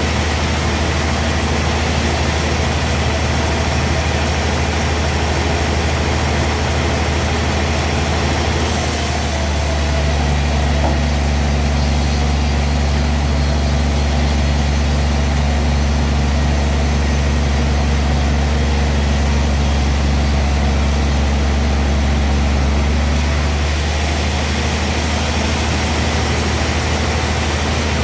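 Sawmill machinery running steadily with a strong low drone. From about nine seconds in until about twenty-three seconds the drone deepens and gets slightly louder, then settles back.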